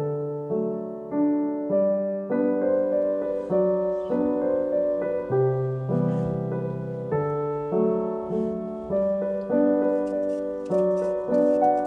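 Solo piano background music: a gentle melody over steady, evenly paced chords.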